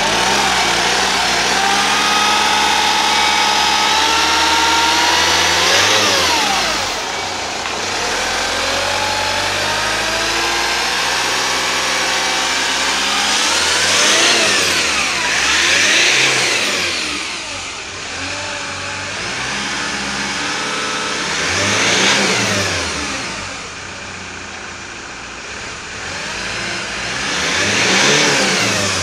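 Hyundai iLoad 2.5 CRDi four-cylinder turbo-diesel idling, then revved up several times, each time rising in pitch and falling back to idle.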